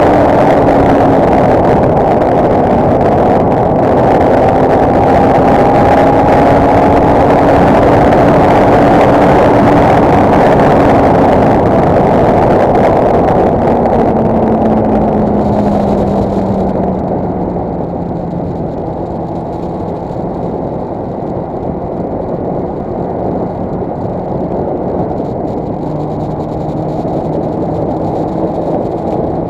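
Kawasaki ZX6R inline-four sport-bike engine at track speed, heard through heavy wind rush on a bike-mounted camera. About halfway through, the engine note falls and the wind noise fades as the bike slows to a steadier, lower-revving cruise.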